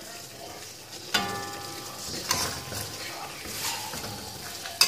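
Metal spatula stirring chicken in thick red chilli sauce in a metal pan, with a sizzle underneath. It knocks against the pan three times: about a second in, the first knock rings briefly; a little after two seconds; and the loudest knock comes near the end.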